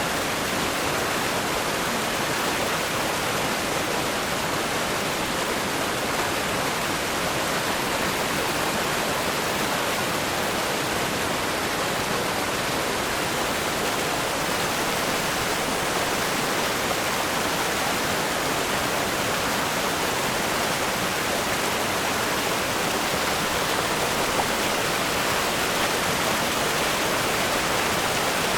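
River rapids rushing over rocks: a steady, even roar of fast-flowing water with no breaks.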